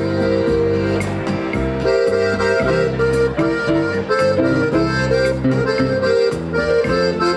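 Live polka band: accordion playing a melody with keyboard backing, a bass line and a steady beat.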